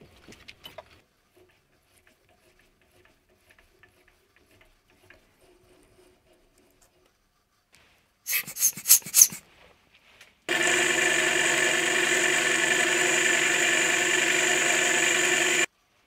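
Hiss of a pressurised nozzle blowing chips out of the freshly tapped bore of a steel part held in a lathe collet: a few short puffs about eight seconds in, then one steady blast lasting about five seconds that cuts off suddenly. Faint light clicks of handling come before it.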